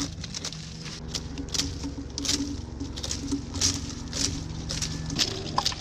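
Dry palm frond leaflets being torn and stripped off the stem by hand: a run of short rasping rips and snaps, about two or three a second, over a steady low hum.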